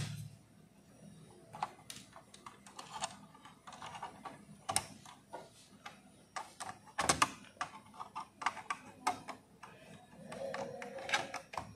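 Irregular small clicks and taps of a screwdriver on a switch's terminal screw and a wire being handled against the plastic switch board, with a couple of sharper clicks about five and seven seconds in.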